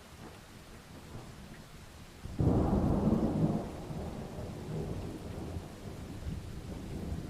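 Rain falling steadily, then a thunderclap breaks about two and a half seconds in, loud for about a second before fading into a low rolling rumble under the rain.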